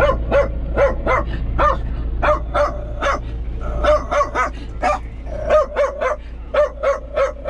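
A dog excitedly barking and yipping inside a tractor cab, short calls about three a second, over the steady low hum of the running tractor engine.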